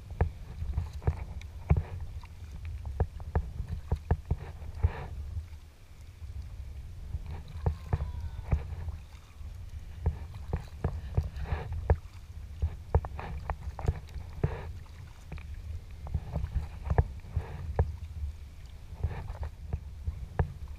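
Sea kayak being paddled: water splashing and dripping off the paddle blades and lapping at the hull in quick, irregular splashes, over a steady low rumble.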